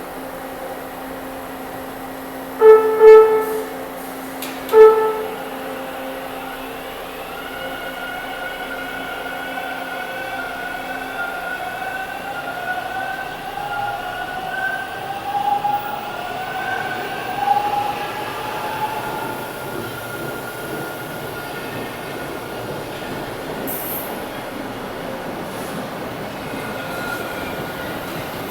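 TTC Line 2 subway train (Bombardier T1 cars) sounding two short horn blasts, a warning to workers at track level, then running through the station with a high, wavering squeal that fades after about twenty seconds.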